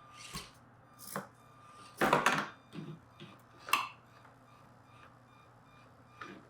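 Knocks and clatters of a 1/24-scale Axial SCX24 crawler's wheels and chassis hitting the obstacles of a crawler course. There are several separate hits, the loudest cluster about two seconds in, over a faint steady hum.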